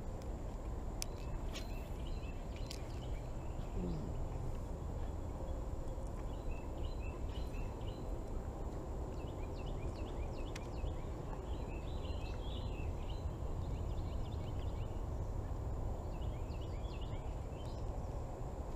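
Birds chirping on and off over a steady low rumble, with a few sharp clicks.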